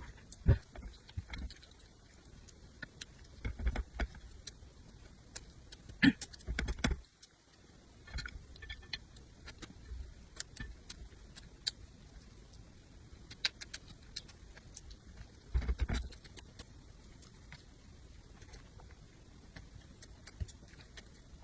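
Eating sounds: chewing with scattered sharp clicks and crunches, louder for a moment around a few seconds in, near the middle and again about three-quarters through.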